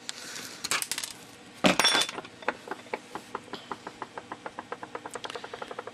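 A pointed tool scraping and prying a glued-in infrared lens out of its small metal housing, with a sharp crack and clatter as it breaks free. Then a long run of small clinks that come faster and faster, like a small hard piece spinning down to rest on the bench.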